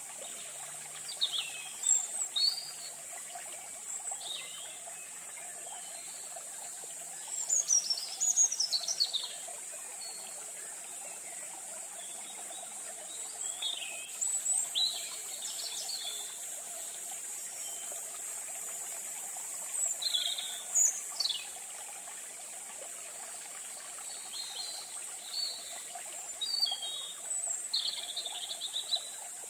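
Outdoor ambience of birds calling in short, scattered chirps, some falling sharply in pitch, over a steady high insect drone. The calls come in clusters, loudest about eight seconds in and again around twenty seconds.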